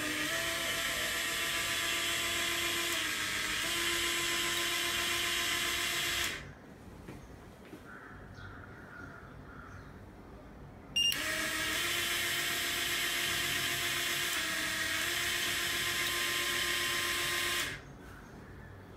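Small vending-machine gear motor running twice under a vending controller's timer, each run lasting about six and a half seconds with a steady whine that dips briefly in pitch midway. Each run starts abruptly with a click and cuts off suddenly; the second starts after a card is tapped on the reader.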